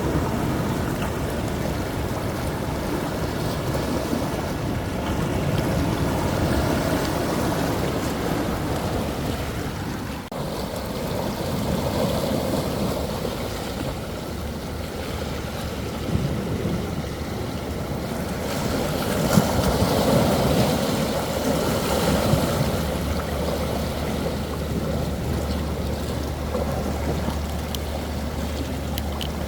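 Rough sea surf surging and breaking, swelling louder several times, with a steady low rumble near the end.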